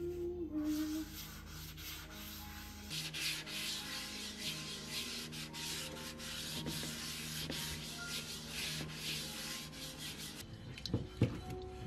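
Folded kitchen paper rubbed back and forth over the oiled inside of a nonstick frying pan, a steady scratchy rubbing that grows stronger about three seconds in. A few sharp knocks near the end.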